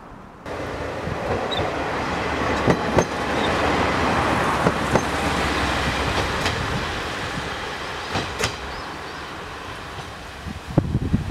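Red KiHa 40-series diesel railcar running past at close range, its engine rumbling steadily and its wheels clicking several times over rail joints.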